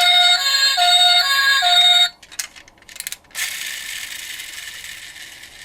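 A toy emergency vehicle's electronic two-tone siren alternates between a high and a low note, about one change every 0.4 s, then cuts off about two seconds in. A few sharp clicks follow, then a high hiss that slowly fades away.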